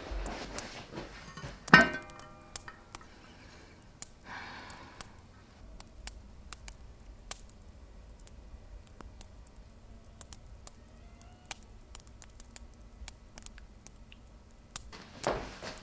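Scattered light clicks and knocks of food and kitchenware being handled, with one louder ringing clink just under two seconds in and a short scrape a few seconds later.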